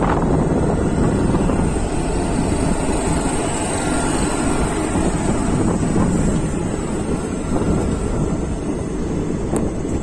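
Steady running rumble of a passenger train's coaches rolling on the track, heard at an open coach door, with wind buffeting the microphone.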